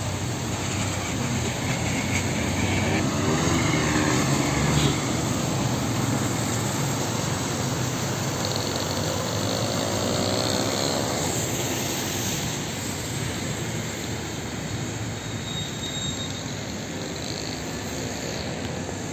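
Steady rush of a flooded street: floodwater running along the kerb and pouring into a storm drain, with vehicles driving through the standing water.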